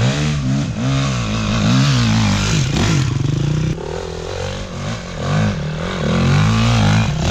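Dirt bike engine revved in repeated bursts, its pitch rising and falling about once or twice a second, easing off briefly a little past the middle.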